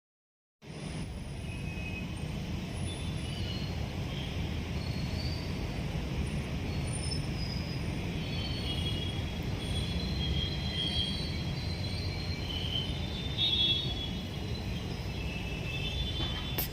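Outdoor ambience: a steady low rumble with scattered short, high-pitched chirps or squeaks, starting abruptly about half a second in.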